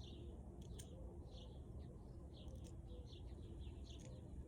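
Small birds chirping in the background, a string of short high chirps that each slur downward, with a few faint sharp clicks among them.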